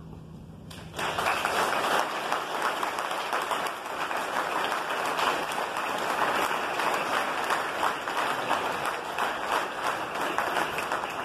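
A roomful of people applauding, the clapping breaking out suddenly about a second in and going on steadily as many hands clap at once.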